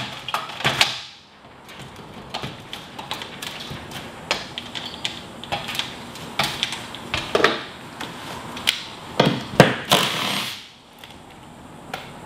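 Aluminium ladder being stood against a climbing wall and climbed: irregular metal knocks and clanks from the ladder and boots on its rungs, with a cluster of louder knocks about nine to ten seconds in.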